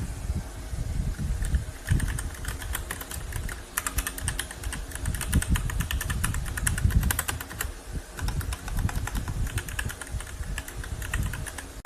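Typing on a K68BT mechanical keyboard with red linear switches: a quick, uneven run of key clicks that grows busiest in the middle, over a low rumble.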